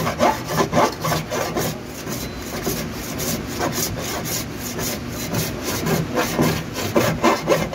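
Hand body file drawn over a painted car door panel in quick filing strokes, about three a second, loudest near the start and near the end. The strokes scrape the paint off the high spots of the dent, leaving the low spots still showing.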